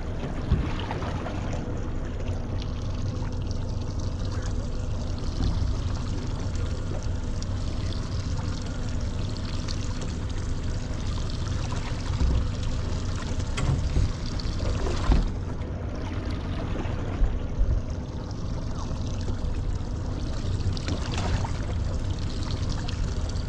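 Water sloshing and trickling against a small boat's hull, steady throughout, with a few faint knocks.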